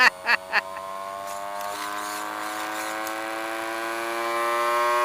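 Electric whine from a ZD Racing Phantom 400 brushless RC dirt bike after power-on, a steady buzzing tone that slowly rises in pitch and grows a little louder as it spins up.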